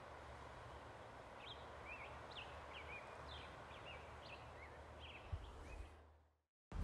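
Faint outdoor ambience with a steady low rumble, over which a bird chirps a quick run of short notes for about three seconds. A brief low thump comes near the end, then the sound fades out.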